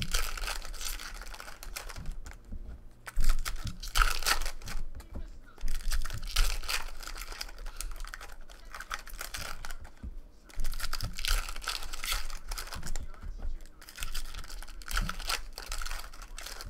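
Foil wrappers of Topps Chrome baseball card packs being torn open and crinkled by hand, in irregular bursts.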